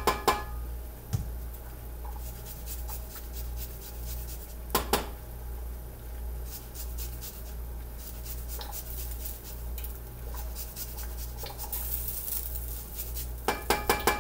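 Microplane grater rasping across lime peel in quick strokes, broken by clusters of sharp metallic taps on the saucepan at the start, about five seconds in, and near the end.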